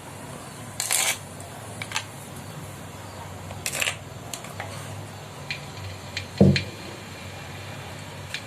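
Metal utensil scraping and clinking against a wok as ground spice paste goes into the hot oil: a few short scrapes, then a louder knock about six and a half seconds in.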